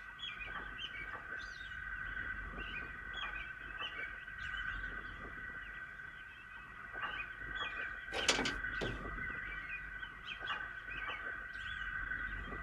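Birds chirping in quick short calls over a steady background ambience, with a sharp knock a little past the middle.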